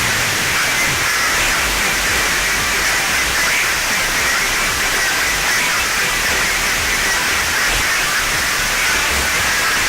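Loud, steady static-like hiss with no clear tune or beat, strongest in the upper-middle range.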